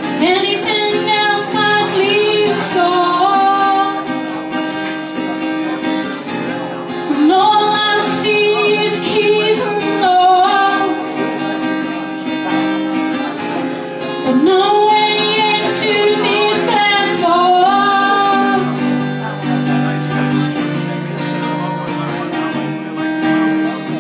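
A woman singing live to her own strummed acoustic guitar: three sung phrases, with the guitar carrying on between them.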